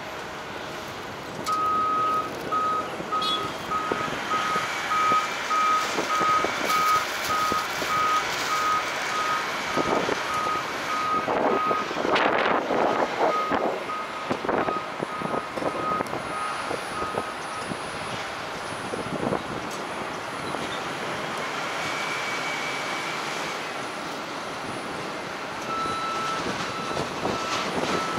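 Reversing alarm of an airport ground vehicle on the apron: a single high beep repeating about twice a second, stopping about two-thirds of the way through and starting again briefly near the end. Wind noise and a few clattering knocks lie underneath.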